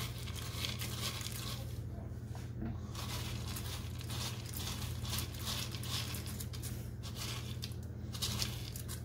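Soft, irregular crackling and crinkling as crispy bacon bits are crumbled between the fingers and sprinkled onto a pot of creamy potato soup, over a steady low hum.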